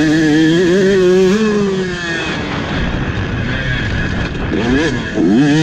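KTM 150 SX two-stroke dirt bike engine under riding throttle: held high for about a second and a half, then pitch falling away as the throttle is shut off, a quick rev blip near five seconds, and back on the throttle with the revs climbing sharply just before the end.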